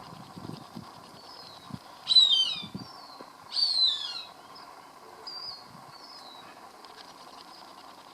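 Cooper's hawk calling: two loud, high, falling calls about two and three and a half seconds in, with shorter faint chirps that recur between them.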